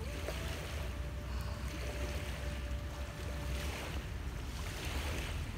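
Wind rumbling on the microphone, with small lake waves washing against the shore in swells every couple of seconds.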